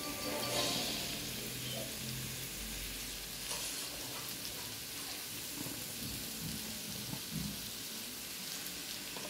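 Mixed vegetables sizzling steadily as they fry in a pot.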